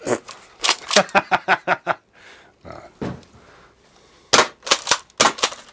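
ASG SPAS-12 spring-powered airsoft shotgun being pump-cycled and fired rapidly: a quick string of sharp plastic clacks and snaps, a short pause, then another fast string from about four seconds in.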